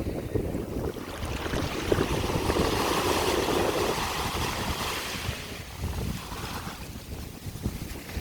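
Sea waves washing ashore: a surge of surf builds about two seconds in, peaks, and fades by about seven seconds, over a constant low rumble of wind on the microphone.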